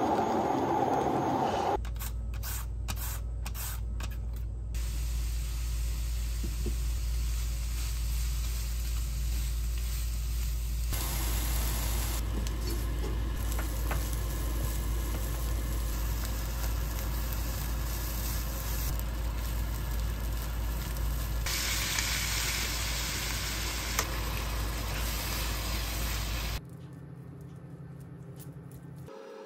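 Food sizzling and frying in a pan, over a steady low hum. The sound changes abruptly several times, as if from short clips cut together.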